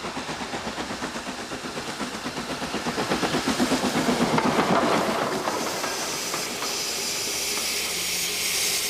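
Steam locomotive running with a fast, even beat that grows louder toward the middle, then a steady hiss of escaping steam from about six seconds in.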